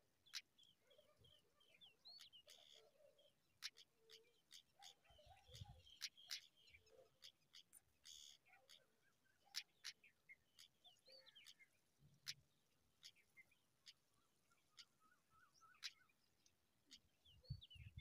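Faint, short bird chirps scattered throughout, with occasional sharp clicks and a few soft low thumps.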